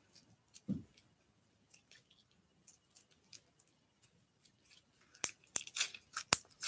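Handling a small plastic slime container or its packaging: faint scattered taps and one soft thud at first, then a quick run of sharp plastic clicks and crinkles from about five seconds in.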